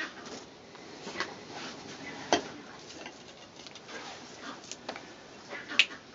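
Scattered sharp snaps and crackles of dry grass and twigs being handled over smouldering dung-and-grass tinder as a small friction-lit fire catches, the loudest about two seconds in and near the end.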